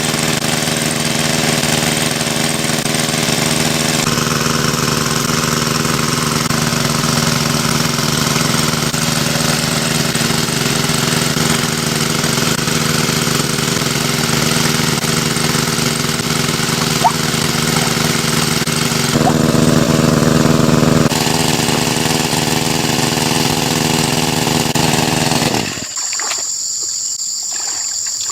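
A small engine-driven water pump running steadily, its note shifting abruptly a few times. About 26 seconds in, the engine sound cuts off suddenly, leaving a steady high drone of insects such as crickets.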